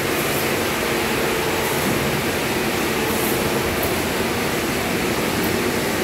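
Sawmill machinery running with a steady mechanical drone, from the log deck's chain conveyors and rollers feeding the breakdown saw line.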